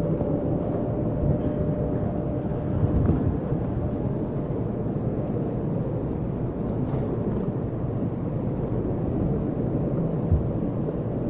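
Steady low rumbling background noise of a large crowded hall, with a few faint knocks now and then.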